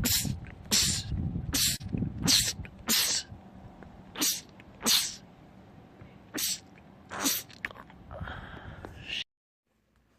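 A man in a rapid sneezing fit: about nine short, hissy sneezes in quick succession, stopping abruptly about a second before the end.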